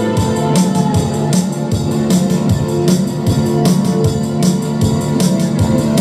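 Live band playing rock music: electric keyboard and electric bass over a steady drum beat.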